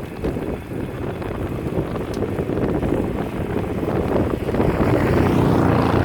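Wood-Mizer LT35 portable band sawmill running, a steady engine-driven rumble that grows louder over the last couple of seconds, with wind buffeting the microphone.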